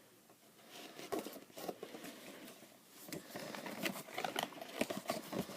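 A toy box's packaging being cut open with a knife and handled: light scraping, small clicks and rustles, sparse at first and busier after about three seconds.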